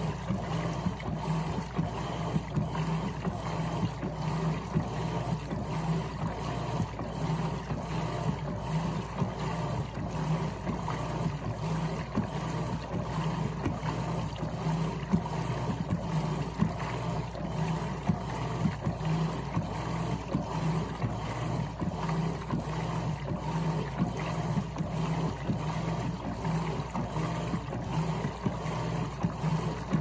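Electrolux LTC15 top-loading washing machine agitating in its wash cycle: a rhythmic churning of water and clothes over the drive's hum. The basket is turning loose because the clutch coupling does not lock it.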